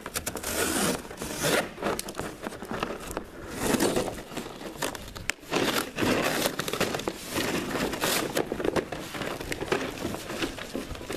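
A long cardboard shipping box being cut open with a dull knife and its flap torn back: irregular scraping, tearing and crinkling of cardboard with sharp clicks.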